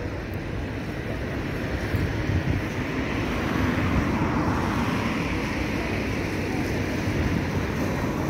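Steady low rumble of outdoor engine and traffic noise, with no distinct events.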